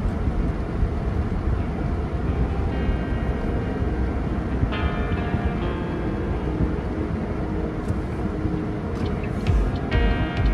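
Car driving slowly, a steady road and engine rumble heard from inside the cabin, with background music coming in about three seconds in.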